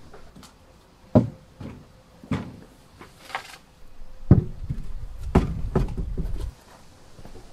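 Large plywood sheets being handled against a wooden shed and paving slabs: several sharp wooden knocks, then a couple of seconds of low rumbling scraping after the middle.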